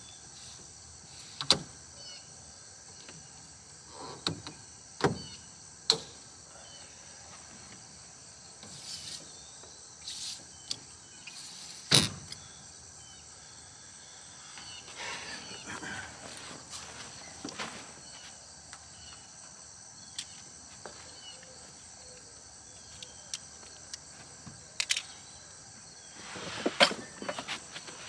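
Camping gear being shifted around in a pickup truck bed: a handful of sharp knocks and short rustles as bags and a cooler are moved, the loudest about a third of the way in and a cluster near the end. A steady high insect buzz runs underneath.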